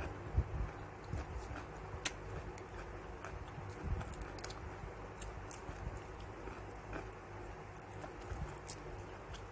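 Eating sounds: chewing and small mouth clicks, with soft knocks as fingers work shrimp and rice in a bowl, over a low steady hum.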